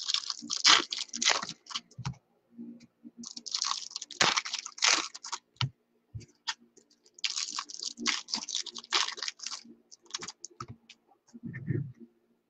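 Foil trading-card pack wrappers crinkling and tearing in three bursts, with scattered clicks between them, as card packs are opened. A soft low thump near the end.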